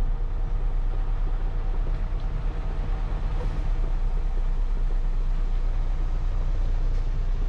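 Concrete mixer truck's diesel engine running steadily at raised speed, heard from inside the cab, while the turning drum discharges its last couple of yards of concrete.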